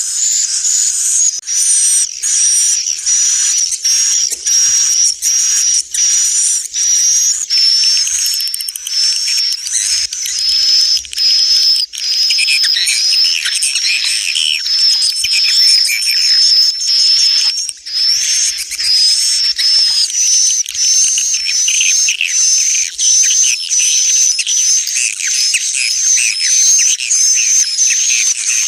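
Recorded edible-nest swiftlet twittering: a dense, continuous stream of rapid high-pitched chirps. This is an "inap" (roosting) lure call of the kind played in swiftlet houses to draw the birds in to roost and nest.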